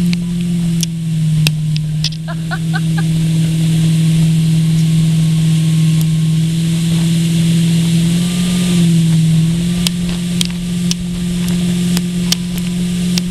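Towboat engine running steadily at speed, a constant drone that dips briefly in pitch about eight to nine seconds in, with scattered sharp clicks over it.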